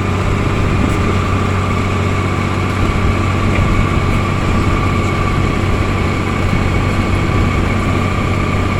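Heavy diesel road-works machinery running steadily, a low engine drone with a constant high whine over it.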